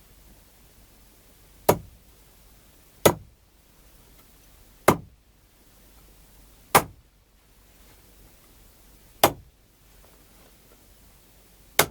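A foley artist's prop struck six times in sharp, hard hits about one and a half to two and a half seconds apart, each dying away quickly.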